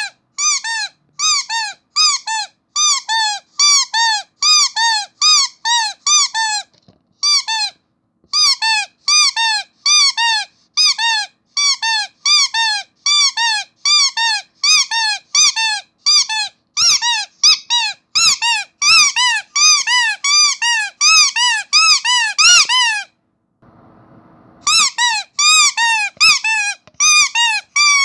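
Starfish-shaped rubber squeaky toy squeezed over and over, giving a quick run of loud squeaks, each rising and falling in pitch, about two to three a second. The squeaking breaks off briefly twice, the second time for over a second near the end.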